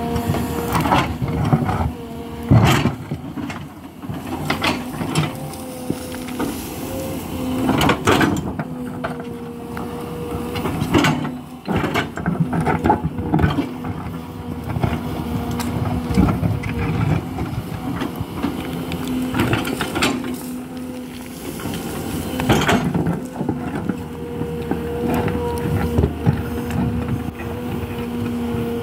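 Hidromek HMK 220LC crawler excavator's diesel engine and hydraulics running under load with a steady hum. Irregular knocks and scrapes, the loudest about 2.5 s, 8 s and 22.5 s in, come from the bucket working rock and soil.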